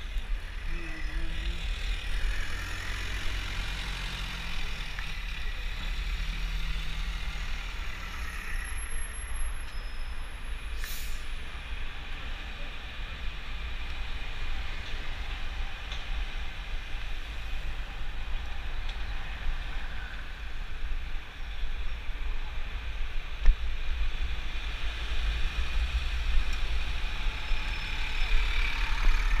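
Road and traffic noise while riding through city traffic among buses and taxis: a steady low rumble with a hiss over it, and one brief sharp hiss about eleven seconds in.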